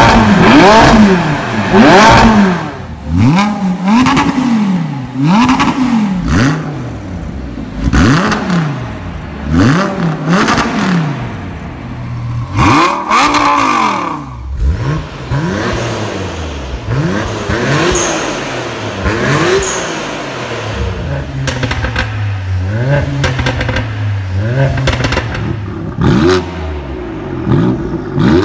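Supercar engines revved while parked, one after another. First a McLaren's twin-turbo V8 is blipped to high revs about once a second. Then a Lamborghini Gallardo's V10 idles between occasional revs, and near the end a BMW M3's twin-turbo straight-six is blipped.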